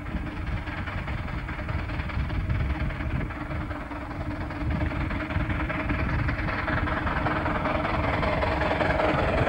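Small 15-inch gauge steam locomotive, built by the Exmoor Steam Railway, running towards and past with its train of carriages: a steady running rumble that grows louder in the last few seconds as it draws close.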